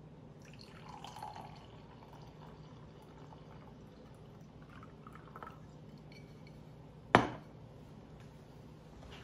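Red wine poured from a glass bottle into a wine glass, the pour heard mostly in the first couple of seconds. About seven seconds in, the glass bottle is set down on a tiled tabletop with one sharp knock.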